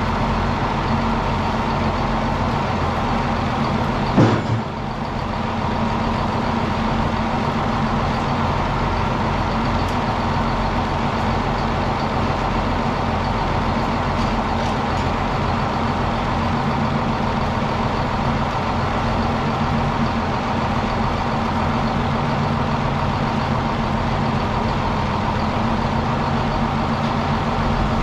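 Circular sawmill running steadily, its power unit and spinning blade giving a constant hum with a steady higher tone, with one sharp knock about four seconds in.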